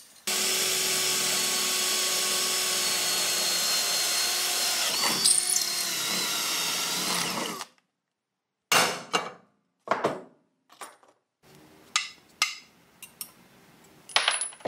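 Power drill running steadily for about seven seconds while drilling through the side of a steel electrical box, then stopping suddenly. It is followed by scattered clicks and knocks as the metal box is handled.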